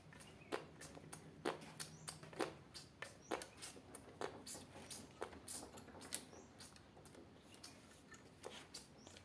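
Irregular light clicks and ticks of chainsaw bar and chain parts being handled and fitted, about two or three a second, becoming sparser near the end.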